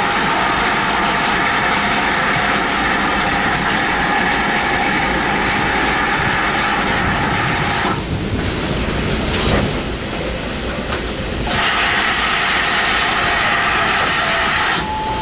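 GWR 'Large Prairie' 2-6-2T tank locomotive heard at close range: a steady loud hiss of steam over a low rumble. The hiss drops away for about three seconds around the middle, then comes back.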